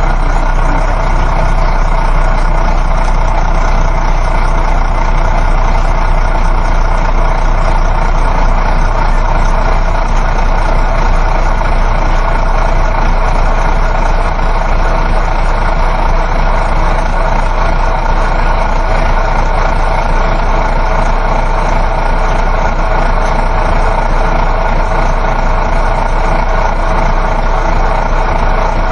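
Coach bus engine running steadily with road noise, heard from inside the passenger cabin.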